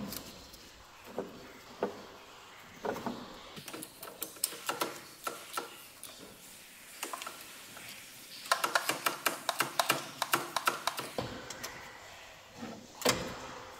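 Hand socket ratchet clicking in short runs, with metal tools and parts clinking, while the belt tensioner is bolted back onto the engine. The longest run comes about eight and a half seconds in: rapid, even clicks, about six a second, for nearly three seconds.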